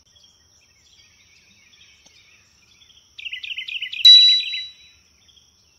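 Intro sound effects over an animated title card: faint chirping, then a run of quick falling bird-like chirps about three seconds in, ending in a bright ding just after four seconds that rings out in under a second.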